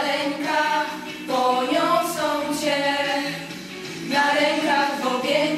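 A small group of female voices singing a Polish song in harmony, in long held phrases with short breaks between them.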